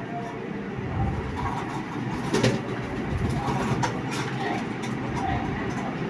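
Boiled potato being grated by hand on a flat stainless steel grater: repeated rasping scrapes, with a few sharper clicks about two and four seconds in.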